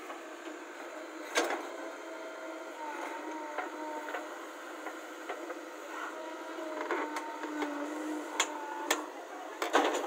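JCB backhoe loader digging a trench in stony soil: the engine and hydraulics run steadily with a faint shifting whine, while the bucket teeth scrape and knock against rocks and clods in sharp clicks, loudest about a second and a half in and in a cluster near the end.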